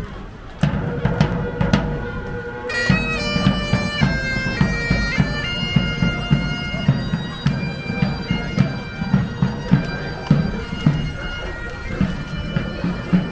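A marching band of bagpipes and drums. The pipes' steady drone sounds about half a second in, and the chanter's melody starts about three seconds in, over a steady marching drumbeat.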